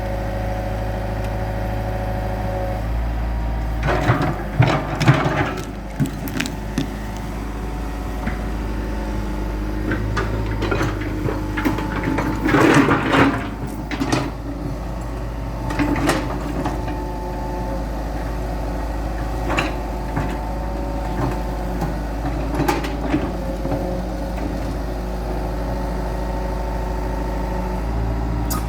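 Diesel engine of a Hitachi EX100-2 hydraulic excavator running steadily under work, its pitch shifting a few times, with clusters of knocks and scrapes from the machine at work, the loudest about four and twelve seconds in.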